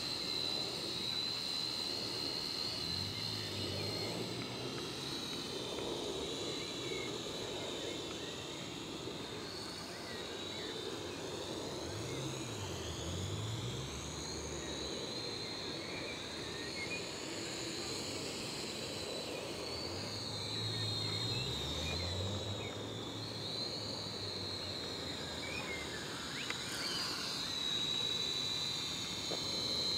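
Syma X5C toy quadcopter's four small brushed motors whining in flight. The whine is high and continuous, its pitch rising and dipping as the throttle changes.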